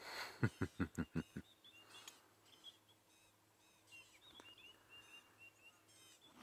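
Small birds chirping and calling in the bush, their mild alarm calls directed at a leopard cub. About half a second in, a quick run of about six sharp clicks is the loudest thing.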